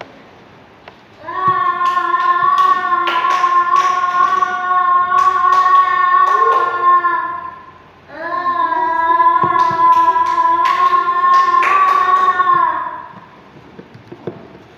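A child's voice holding a long, steady note twice, each about six seconds, with a short gap between. Sharp clicks and taps sound over the notes.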